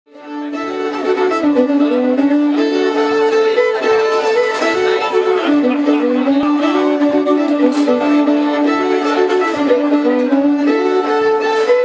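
Two fiddles bowing a tune together, fading in over the first second.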